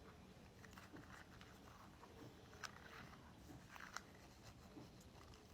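A ball being handled close up: faint, scattered crackling and tapping clicks, with two sharper clicks about two and a half and four seconds in.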